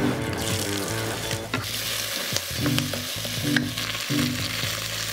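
Diced red onion dropped into hot frying oil in an enamelled pot, sizzling loudly from about a second and a half in while a wooden spoon stirs it, with a few sharp knocks.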